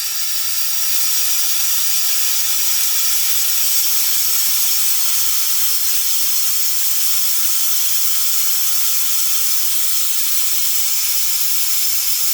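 Compressed air hissing steadily from an air nozzle, pressurizing a jet ski's fuel tank to force the old fuel out through a drain hose. The hiss starts abruptly.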